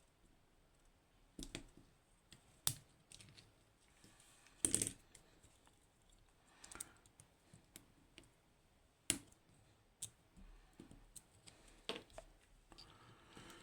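Faint, scattered metal clicks and short scrapes from a flathead screwdriver prying at a lock cylinder's retaining clip.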